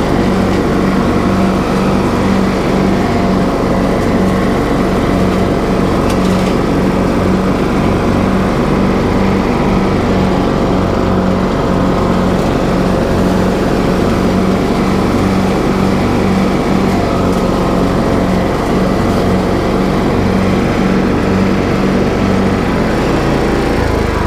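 TroyBilt riding lawn mower engine running steadily under way, with a low pulsing throb that changes shortly before the end.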